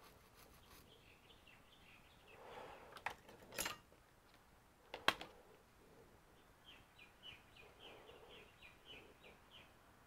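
Mostly very quiet, with a few faint knocks and clicks on the workbench, the sharpest about five seconds in. In the second half there is a faint run of quick, high chirps, about five a second.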